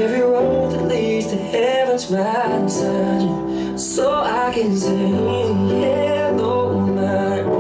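Pop song playing: a singer's melody over a steady bass line and a regular beat.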